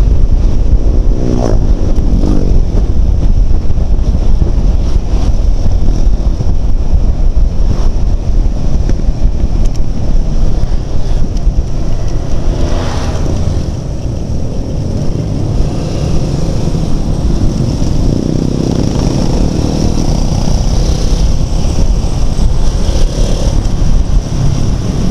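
Wind buffeting the microphone of a motorcycle on the move, over the steady drone of motorcycle engines, with engine revs rising and falling now and then.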